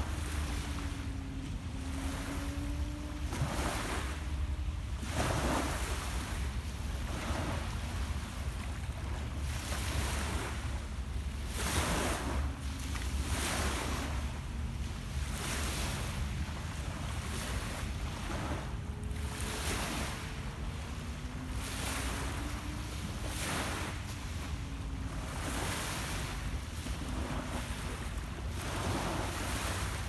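Small Lake Ontario waves lapping on a pebble beach, a soft wash every second or two, over a steady low rumble of wind on the microphone.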